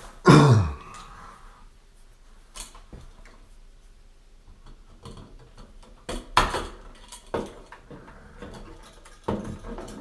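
Several separate sharp clicks and light metallic clinks of hand tools on house wiring as the wires are clipped off an old light switch, with a short loud vocal sound falling in pitch at the very start.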